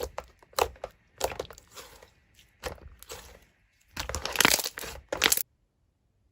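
Slime being squeezed and poked by hand, with irregular crackling and crunchy pops. It gets densest and loudest near the end, then cuts off abruptly.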